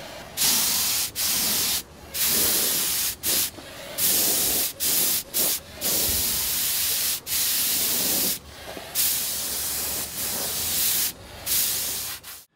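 Compressed-air paint spray gun hissing as it sprays paint onto a tractor fender. The spray comes in repeated bursts of about half a second to a second and a half, with short gaps as the trigger is pulled and released.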